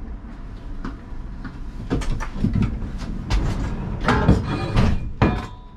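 A series of knocks and clunks in the cab of a Siemens Combino tram standing still, like a door and fittings being handled. They start about two seconds in and grow louder, with the sharpest knock about five seconds in.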